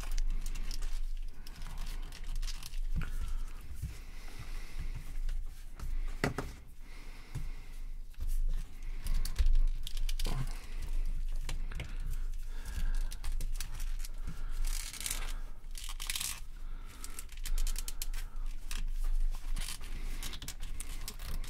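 Plastic parts of NECA action figures being handled, twisted and swapped by hand: rubbing and scraping with scattered clicks as limbs and heads are worked off and pressed on.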